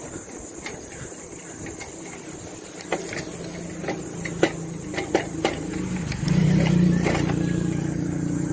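A motor vehicle's engine running close by, drawing nearer and getting louder about six seconds in, with scattered sharp clicks throughout.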